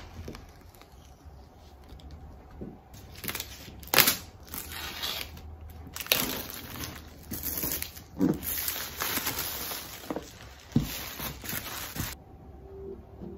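Paper tear-strip tab being pulled off a MacBook Pro box: crinkling and tearing of the wrap, with scrapes and several sharp knocks as the cardboard box is turned over on the table. Music begins near the end.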